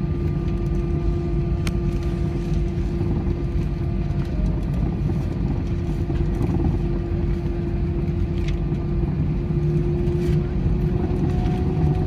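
Airbus A320 cabin noise: the jet engines running steadily, a low rumble under a steady whine, with a few light clicks.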